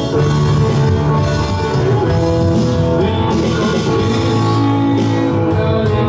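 Live rock band playing a song: electric guitars, electric bass and drum kit.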